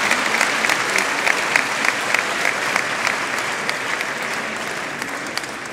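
Audience applauding, a dense crowd of clapping hands that begins to fade over the last couple of seconds.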